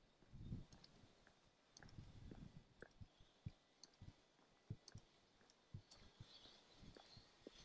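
Near silence with faint, muffled footsteps on asphalt, a soft thump about every half second or so in the second half, and scattered small clicks.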